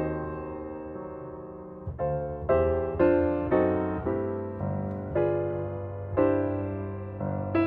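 Background piano music: a held chord for the first two seconds, then a slow melody of separate notes, each ringing and fading.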